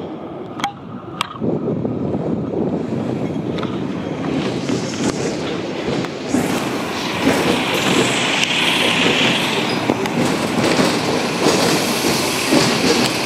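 Hong Kong double-decker tram running, heard from the top deck: a steady rumble of the car and its wheels on the street rails. Two sharp clicks about half a second apart come near the start, and a hissing rises around the middle.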